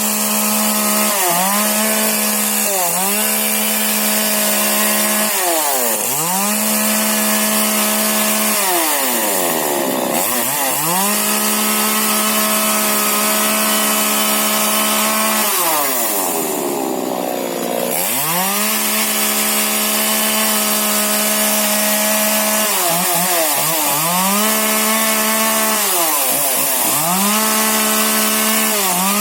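Small 40cc two-stroke chainsaw running at high revs while pruning shrubs, the throttle held open for a few seconds at a time, then let off so the revs fall and climb straight back, over and over.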